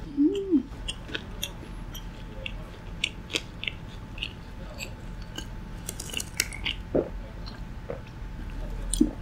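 Close-miked eating: a mouth chewing and biting food, with many small sharp clicks and wet mouth sounds. The loudest bites come near the start and again near the end.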